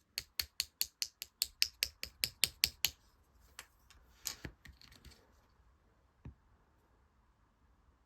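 Clear slime being played with by hand, giving sharp clicks and pops: a quick regular run of about five a second for the first three seconds, then a few scattered louder pops and one last single click.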